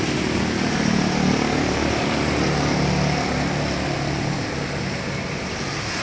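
Road traffic at a street junction: vehicle engines running, a steady low hum over a wash of traffic noise, fuller in the middle of the stretch.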